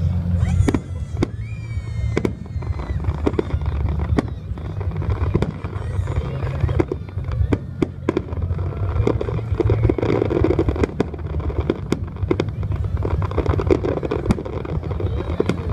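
Aerial fireworks display: shells bursting in a rapid string of sharp bangs and crackles over a continuous low rumble, with a few whistling glides near the start.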